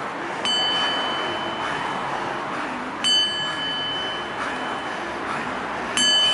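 Small brass singing bowl struck three times with a wooden striker, about every two and a half to three seconds, each strike ringing on in a clear, steady high tone.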